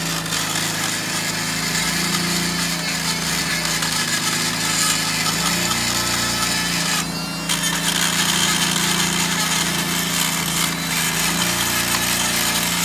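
Dremel rotary tool grinding built-up rust off a brake caliper bracket where the pad slides, stopping briefly about seven seconds in. The rust is being cleared so the brake pad can slide freely in its groove.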